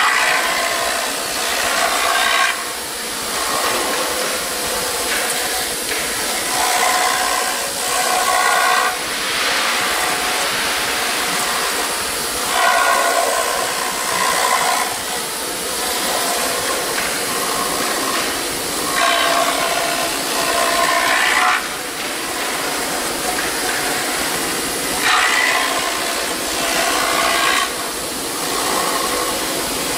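4-axis CNC foam router at work: the spindle runs with a steady high whine while the bit cuts EPS foam on the rotary axis. The cutting noise swells about every six seconds as the tool sweeps across the workpiece.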